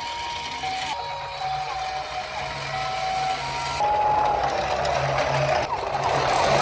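Two-tone hi-lo siren alternating evenly between a high and a low pitch, the 'pi-po' pattern of a Japanese ambulance. About four seconds in, a siren with a falling pitch takes over, under a dense noisy layer.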